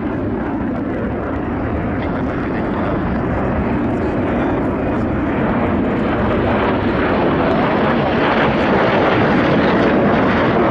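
Jet engine noise from military fighter jets flying overhead: a steady, dense rumble that grows slightly louder.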